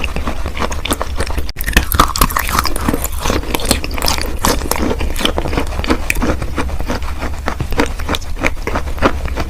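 Close-up chewing of wet chalk: a dense, irregular run of crisp crackles and crunches, over a steady low hum.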